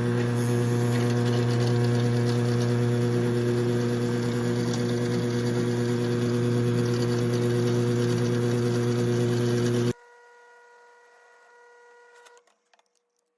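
Electric drill press running steadily as it bores a hole through four clamped pieces of wood at once, with a strong, even motor hum; it cuts off suddenly about ten seconds in.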